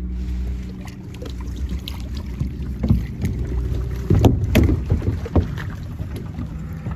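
Small boat's outboard motor running slowly with a steady low hum. A cluster of knocks and clatter comes about three to five seconds in.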